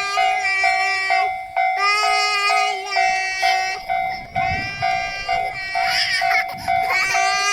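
Japanese railway level-crossing warning bell sounding its rapid, even "kan-kan" alarm, one steady tone struck over and over. Long held notes with overtones sound over it again and again.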